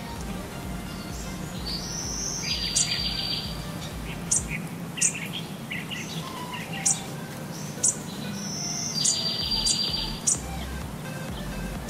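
Birds chirping: a buzzy high trill that comes twice, about six seconds apart, with short sharp chirps in between.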